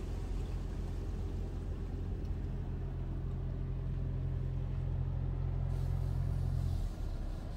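Automatic car wash machinery heard from inside the car: a steady low hum that cuts off suddenly about seven seconds in.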